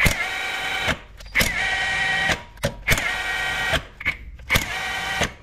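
Cordless impact wrench spinning flywheel bolts in, in four bursts of about a second each, running them down before they are torqued.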